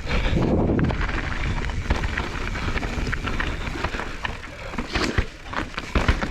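Mountain bike riding down a steep, rocky trail section: tyres rolling over rock, with frequent knocks and rattles from the bike.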